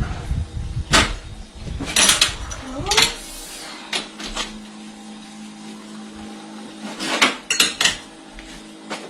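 Metal milking-parlour equipment clanking and knocking in a string of separate hits, with a short rising squeak about three seconds in and a steady machine hum after it.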